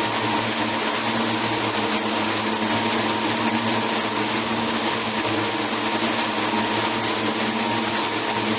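Textile mill spinning frames running. The many spindles make a loud, steady whir with a constant hum and a thin steady whine on top.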